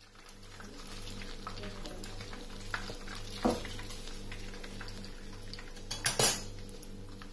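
Metal kitchen tongs and a plate clinking as fried fish pieces are moved about, with a sharp clatter about halfway through and a louder cluster of clatters near the end, over a steady low hum.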